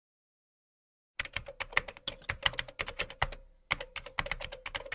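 Typing on a computer keyboard: a quick run of key clicks starting about a second in, with a brief pause partway through before the typing resumes.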